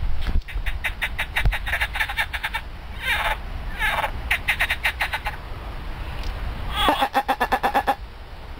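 Frogs croaking in rapid rattling pulse trains. There are several bouts with short pauses between them, and two shorter, smeared calls about three and four seconds in. The calling stops nearly a second before the end.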